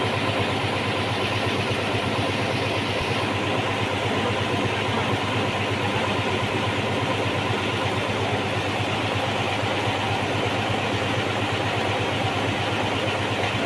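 Small engine of a mini road roller running steadily, with an even, unbroken note, after its repair for hard starting.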